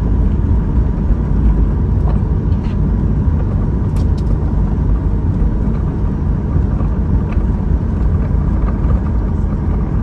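Cabin noise of a Boeing 737-800 rolling out on the runway after landing: a loud, steady low rumble from the wheels on the runway and the CFM56-7B engines, with a faint steady whine and a couple of light clicks.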